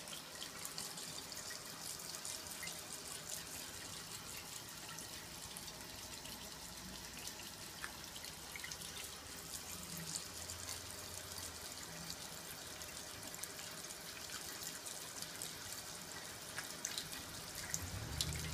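Kitchen tap running a thin stream of water into a sink, a steady splashing hiss.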